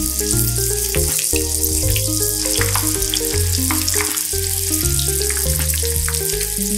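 Battered chicken wings deep-frying in hot oil in a pan: a steady, dense sizzle with scattered crackling pops. Background music with a stepping bass line plays underneath.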